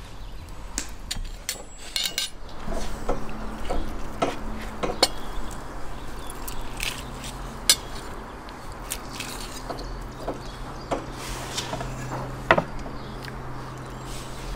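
Metal skewer and cutlery clinking and scraping against ceramic plates in scattered sharp clicks, as roasted chicken is slid off the skewer onto a plate.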